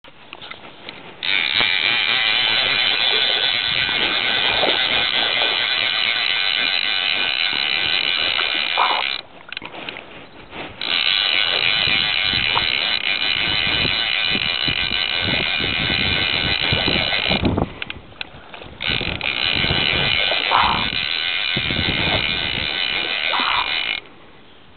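Fishing reel's click-and-pawl check buzzing as line is pulled off it, in three long runs of several seconds each with short pauses between: a hooked fish running.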